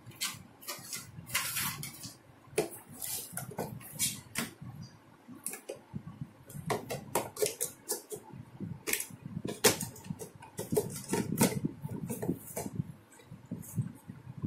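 Hard plastic toy kitchen set parts being handled and fitted together: irregular clicks, knocks and clatters of plastic on plastic, some on the floor.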